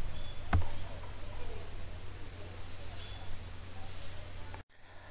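Steady high-pitched chirping, pulsing about three times a second, over a low hum, with a faint click about half a second in; all sound cuts out briefly near the end.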